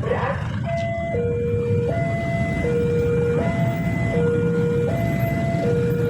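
Railway level-crossing warning alarm sounding an electronic two-tone signal that steps back and forth between a higher and a lower pitch, each held about three-quarters of a second. It starts about a second in, over a steady low rumble, and warns road users that a train is approaching.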